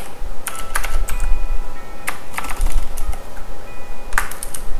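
Computer keyboard being typed on in short irregular runs of key clicks.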